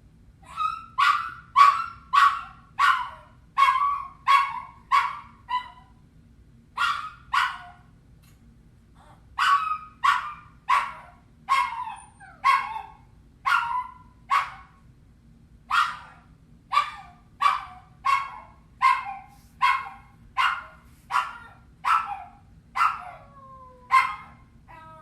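Small dog giving a long series of short, high yelping whines, one to two a second in runs with brief pauses, with a drawn-out falling whine near the end.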